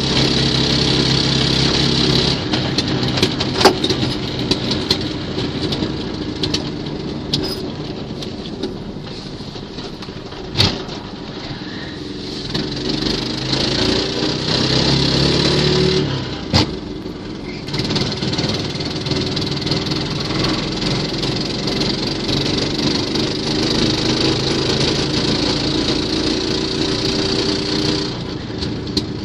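A small 6.5 hp single-cylinder four-stroke walk-behind tractor engine running in a VAZ 2109 hatchback. Its pitch changes as the engine revs, rising for a few seconds around the middle, and a few sharp knocks stand out along the way.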